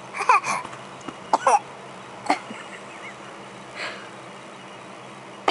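A baby fake coughing: short, throaty little coughs in quick clusters over the first two or three seconds, then one fainter one.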